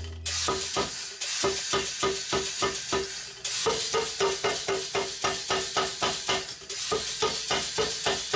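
Steel being forged with rapid, even hammer blows, about four a second, each with a short metallic ring, with a couple of brief pauses.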